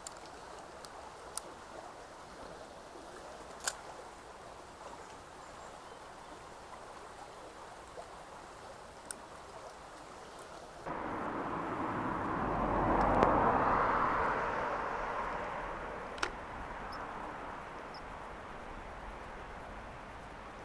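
Small stream running steadily, with a few faint sharp clicks. About eleven seconds in the sound changes abruptly to a car passing on a road, swelling to a peak a couple of seconds later and then fading away.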